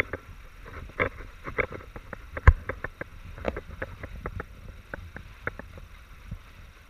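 Small waves slapping against a sailing catamaran's hull in quick, irregular knocks, over a low rumble of wind on the microphone. One heavier thump comes about two and a half seconds in.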